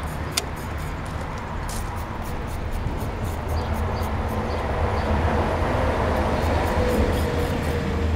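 V8 engine with individual injector stacks and open zoomie headers cranking over on the starter while fuel is sprayed into the stacks, turning with a steady low rumble but not catching, with a few sharp pops.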